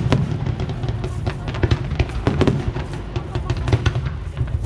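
Fireworks going off in many sharp, irregular bangs and crackles, over loud music with a heavy drum beat from loudspeakers.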